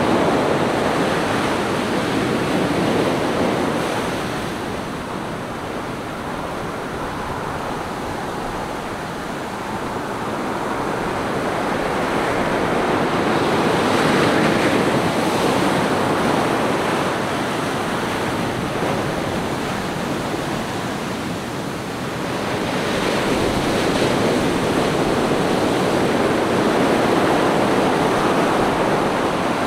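Ocean surf breaking and washing up a sandy beach: a steady rush of water that swells and ebbs in slow surges, louder near the start, around the middle and again through the last few seconds.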